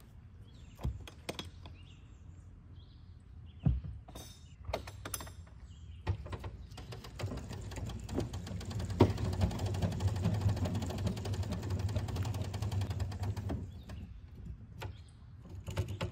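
Pop-up camper's roof lift crank being turned: a fast, even run of clicking over a low steady hum for about seven seconds in the middle as the lift mechanism raises the roof. A few separate knocks and clicks come before it.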